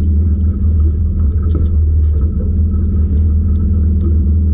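Jon boat's outboard motor running steadily with a low rumble, with a few faint light clicks over it.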